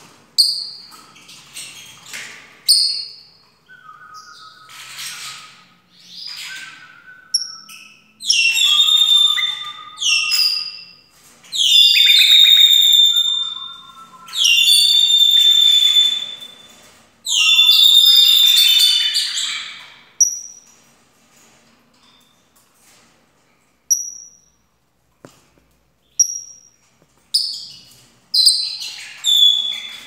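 Small caged parrot singing a warbling, whistled song. Clusters of bright whistled notes build to several long, loud phrases in the middle, then thin out to short single chirps before a few more bursts near the end.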